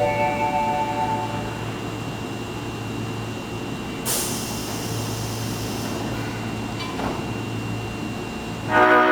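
Horn of an Osaka Municipal Subway 22 series train, one of the former OTS series cars whose horn sounds unusual. It sounds a chord of several tones that dies away in the first second and a half, and blows again near the end. In between the train runs steadily, with a burst of hiss about four seconds in.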